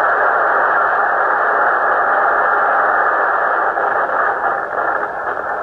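Tornado wind heard through a doorbell camera's microphone: a loud, steady rush of distorted noise with no highs, sounding muffled.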